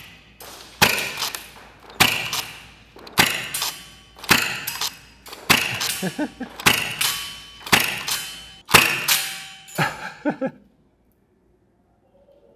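G&G ESG B-10 gas-powered semi-automatic airsoft shotgun fired about nine times, roughly once a second, each shot sending a burst of BBs and followed by a fading clatter; the firing stops near the end.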